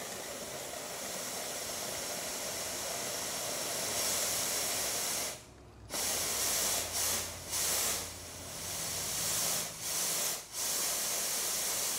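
Compressed-air blow gun hissing as it forces the remaining coolant out of a Gogoro electric scooter's radiator and motor cooling circuit through the drain hose. It runs as one long steady blast, then as a string of shorter blasts with brief breaks after about five seconds.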